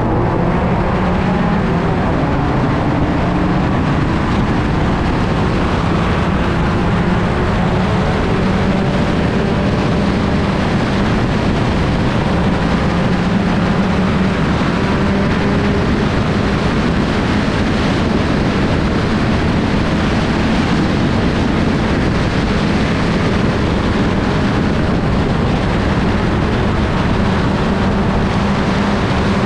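Sport compact race car's engine running hard at racing speed, heard on board as a loud, steady drone with slight rises and falls in pitch, under a constant rush of wind and road noise.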